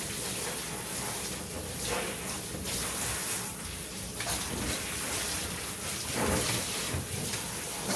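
Water running steadily from a bath sprayer, splashing onto a small dog's coat in a grooming tub.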